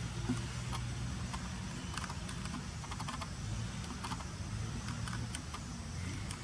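Outdoor ambience: a steady low hum with scattered light clicks and ticks, several in quick clusters around the middle.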